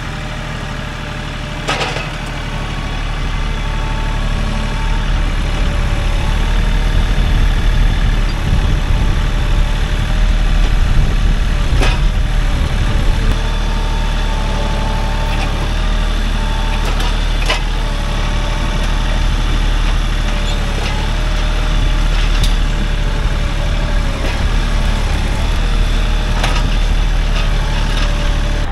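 Tractor engine running steadily, growing louder for several seconds as it works, with a few sharp knocks or clanks over it.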